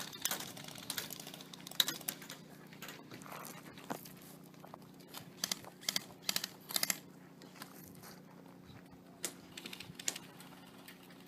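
Airsoft guns firing: scattered single pops and short rapid bursts of pops, the densest a little past the middle, over a faint steady hum.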